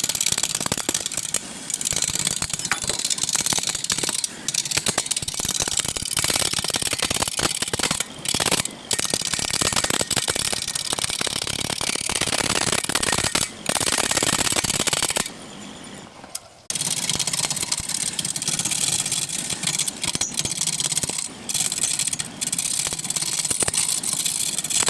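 Wood lathe running while a turning tool cuts the spinning wood, a steady hiss of shavings over the motor's low hum. The cutting breaks off briefly several times, with a longer lull about two-thirds of the way through, as the tool is lifted from the wood.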